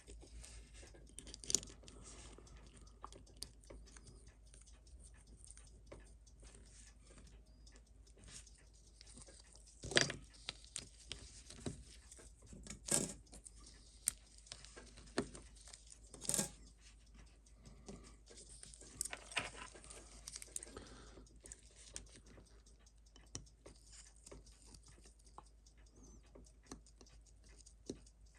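Faint, scattered clicks and taps of small watchmaking tools and movement parts being handled on a workbench, with a few louder knocks about ten, thirteen and sixteen seconds in and a short scratchy rustle around twenty seconds in.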